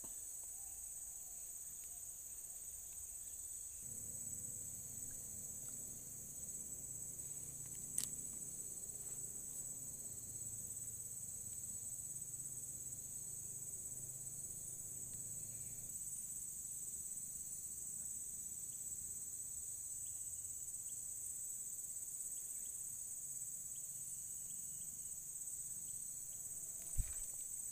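A steady, high-pitched chorus of insects shrilling without a break, with one sharp click about eight seconds in and a dull thump near the end.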